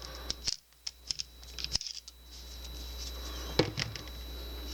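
Light metallic clicks and scraping of a screwdriver working in an American 1100 padlock to take it apart, with one sharper click about three-quarters of the way through.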